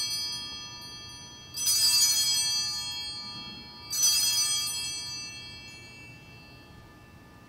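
Altar bells rung at the elevation of the chalice, signalling the consecration. One ring is dying away at first, then two more rings follow about two and a half seconds apart. Each is a bright, high shimmer that fades over about two seconds.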